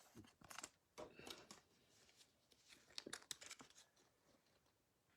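Faint clicks and scrapes of trading cards in rigid plastic toploaders being handled and stacked, in a few short clusters, dying away about four seconds in.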